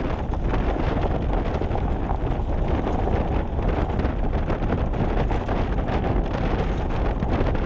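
Steady rumble of a vehicle driving along an old rail-bed off-road trail, with wind buffeting the microphone.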